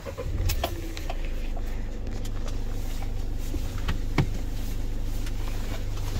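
Citroën Jumper van's diesel engine idling steadily, heard from inside the cab as a low, even hum, with a couple of light clicks from the cab.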